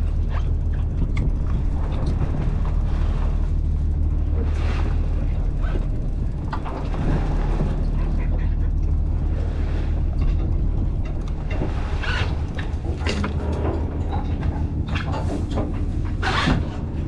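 Boat motor running steadily, a low hum, with a few sharp knocks or splashes in the second half.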